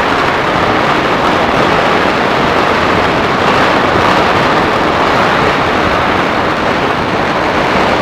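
Massed firecrackers going off across the city at once, their crackling merged into a dense, steady noise without separate bangs.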